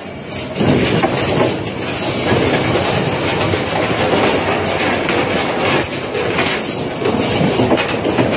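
Twin-shaft shredder's rotating cutter discs pulling in and chopping a tangle of wire: continuous metallic grinding and clanking with frequent sharp knocks.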